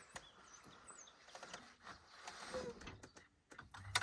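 Faint rustling and light knocks as the pop-up roof of a pickup camper is pushed down, its canvas folding in, with a few faint bird chirps.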